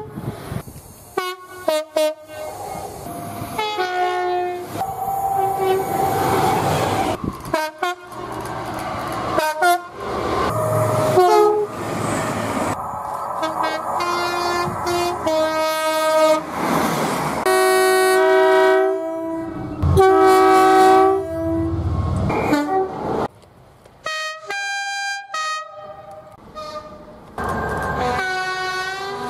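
Train horns on British mainline locomotives and multiple units, sounded in a quick string of short clips cut one after another, each horn note at a different pitch. The rumble of the approaching trains sits underneath.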